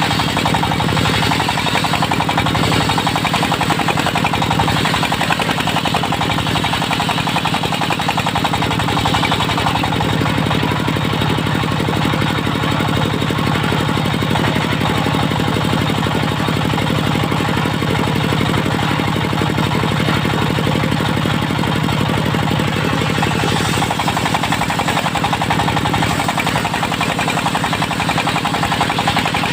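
Diesel engine of a portable circular sawmill running steadily with a fast, even beat, driving the circular saw.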